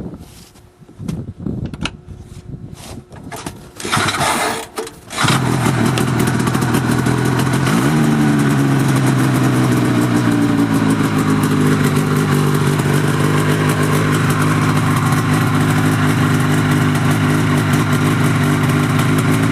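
The Rotax 503 two-stroke twin of a 1980 Ski-Doo Blizzard 5500 snowmobile starting after a few knocks and a short burst, catching about five seconds in and then running steadily, its pitch shifting briefly before it settles.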